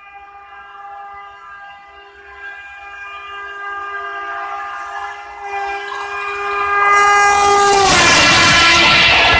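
Horn of an oncoming Indian Railways electric locomotive, held continuously and growing louder as it approaches, its pitch dropping slightly as it passes about eight seconds in. Then the loud rush and rattle of its coaches passing close alongside, heard from the open door of a fast-moving train.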